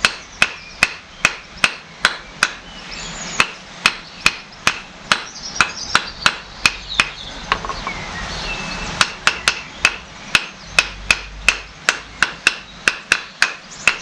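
Hammer tapping on metal, about two to three light ringing taps a second, with a short pause about halfway through, to seat a part into a hydraulic pump body.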